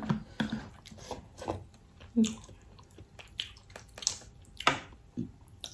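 Close-miked eating sounds of a seafood boil: chewing, biting and wet mouth smacks, a string of short irregular clicks and squishes.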